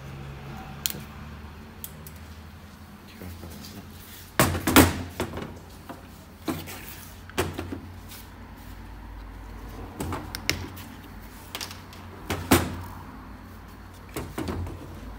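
Irregular hard knocks and clicks of parts and tools being handled and set down, the loudest a cluster about four and a half seconds in, over a low steady hum.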